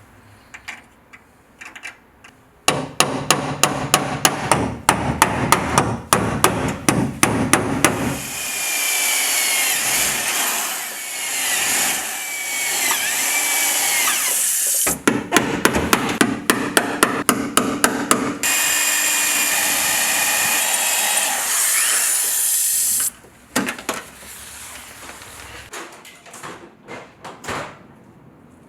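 Metalworking on sheet-steel truck-bed panels: two runs of rapid, regular sharp taps alternate with the steady, wavering whir of a grinder. Scattered light ticks follow near the end.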